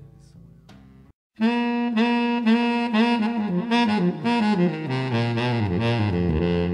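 Background music: a quieter passage fades out about a second in, and after a brief silence a loud saxophone-led tune starts.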